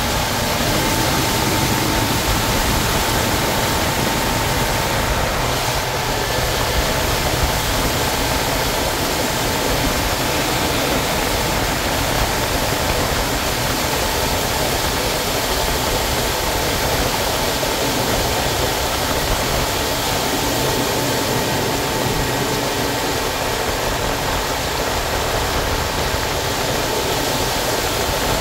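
Motorboat running at speed: a steady engine drone under the loud rushing hiss of the wake and spray beside the hull.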